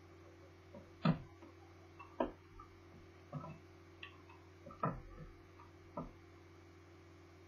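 Scattered clicks and knocks of a Toshiba Satellite L650D laptop's parts and tools being handled during disassembly: about six in the first six seconds, then none, over a steady low hum.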